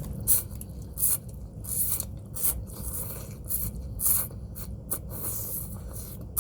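Close-miked eating of noodle soup: a string of short hissy mouth and slurping sounds, about one or two a second.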